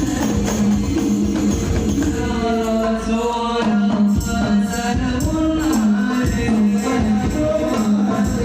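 Shalawat group music: voices singing a devotional melody over a steady beat of rebana frame drums.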